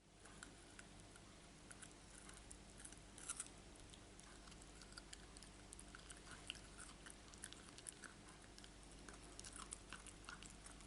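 Labradoodle puppy chewing, heard as faint, irregular small clicks and crunches over a low steady room hum.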